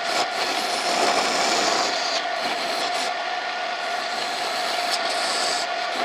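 Homemade wood lathe running with a steady motor hum, the spinning wood being worked with a continuous rubbing hiss.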